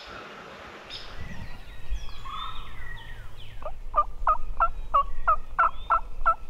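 Wild turkey yelping: a run of about eight evenly spaced yelps, roughly three a second, in the second half, with small songbirds chirping.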